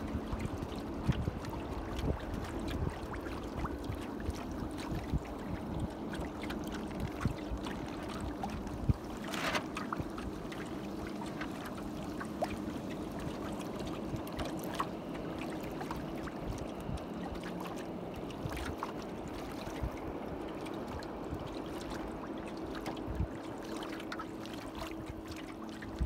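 Water rushing, trickling and splashing along the hull of a 2.4mR sailboat under way, with many small splashes and a louder gush about nine seconds in. A faint steady hum sits underneath.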